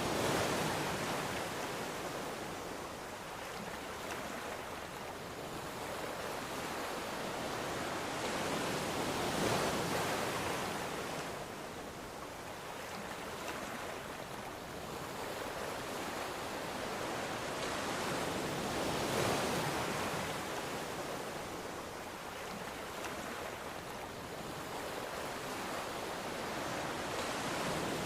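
Ocean surf: a constant wash of waves that swells and fades in slow surges, one peak about every nine to ten seconds.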